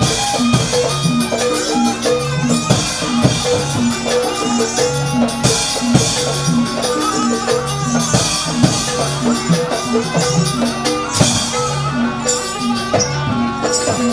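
Jaranan gamelan music accompanying the dance: drums and regular percussion strikes under a repeating pattern of short pitched notes, with recurring high shimmering swells.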